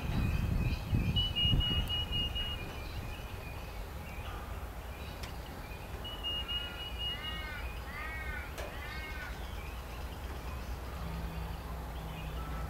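Birds calling: thin, high, held notes, then three calls in quick succession a little past the middle, over a steady low background rumble.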